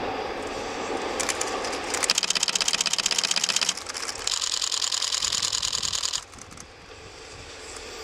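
Camera shutters firing in rapid continuous bursts: two long runs of quick, even clicks, the first about two seconds in and the second from about four to six seconds.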